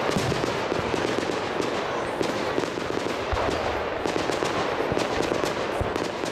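Aerial fireworks going off: a dense, continuous crackle of rapid small pops, with deeper booms about three seconds in and again near the end.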